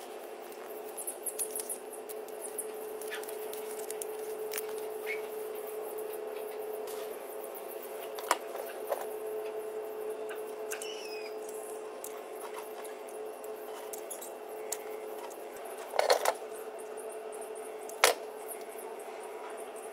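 Small handling sounds of a utility knife cutting and scraping cable insulation on a wooden table: scattered light clicks over a steady hum. Two sharper knocks come near the end.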